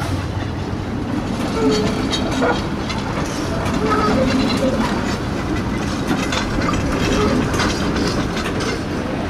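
A PCC streetcar passing close by, its steel wheels clicking over the rail joints and trackwork.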